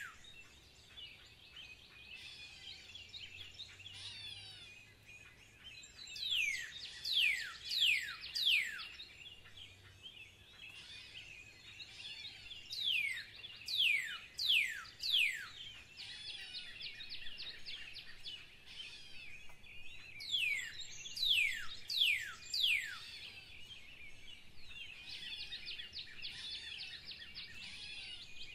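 Birdsong: a songbird repeats a phrase of about six sharply falling whistled notes three times, roughly seven seconds apart, over a steady twittering of other birds.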